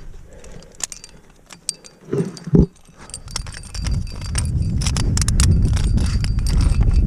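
Metal climbing gear (carabiners and a spring-loaded cam on the rack) clinking and jingling as a cam with a quickdraw is handled and placed in a crack. A brief loud thump about two and a half seconds in, and a steady low rumble comes up about halfway through.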